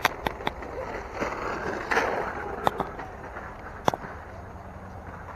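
Handling noise from a camera being moved and repositioned: rustling and scraping, with several sharp clicks scattered through.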